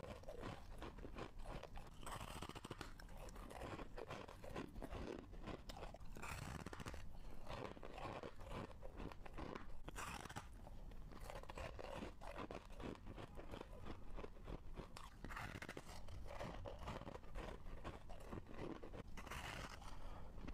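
A person biting and chewing chunks of freezer frost: crisp, crackling crunches, with about five louder bites a few seconds apart.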